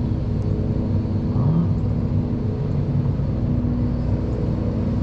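A sports car's engine running with a steady, even hum, which the onlooker takes for an old 1980s Ferrari.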